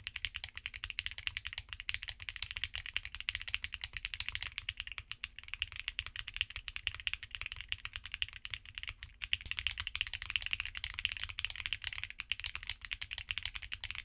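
Continuous fast typing on a mechanical keyboard fitted with Akko V3 Cream switches, which have polycarbonate tops and nylon bottoms. The set changes partway through from the linear Cream Yellow Pro to the tactile Cream Blue Pro and then the linear Cream Black Pro. The keystrokes sound bright and clacky.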